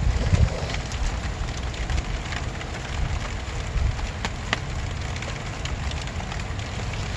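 Steady rain falling, with individual drops ticking sharply on plastic sheeting close to the microphone. A low rumble underneath is strongest in the first half second.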